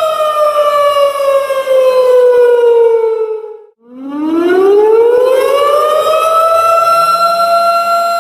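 Tornado warning siren wailing. Its steady pitch falls slowly for about three and a half seconds and cuts out for a moment near the middle. It then winds back up from a low pitch and holds its high tone near the end.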